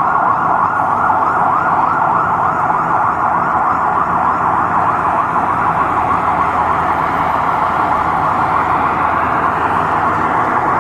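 Fire engine siren sounding continuously in a fast warble, over a low rumble of street traffic.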